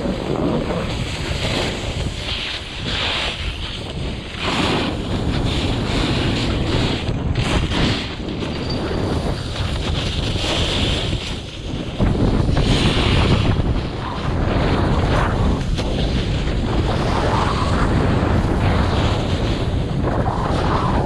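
Wind rushing over the microphone of a selfie-stick camera on a moving snowboarder, mixed with the snowboard's edges scraping and hissing over the snow in surges as it turns. It gets louder about halfway through as speed picks up.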